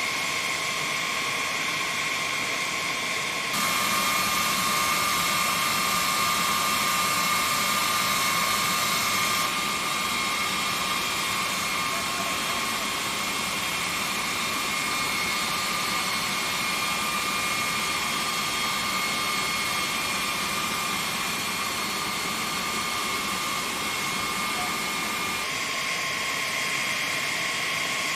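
Jet turbine noise: a steady rush with a high whine held on a few fixed pitches. It steps up in level about four seconds in and drops back about ten seconds in.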